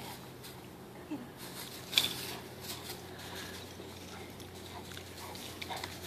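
Faint sounds of an English Mastiff playing fetch with a squeaky tennis ball, with one short sharp sound about two seconds in.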